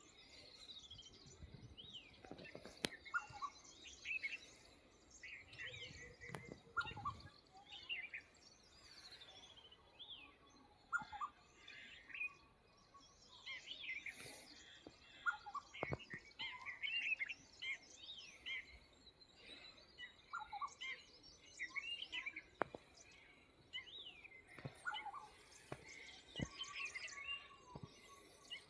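A chorus of several small birds, chirping and calling in short, overlapping notes. There are a few sharp clicks scattered through it.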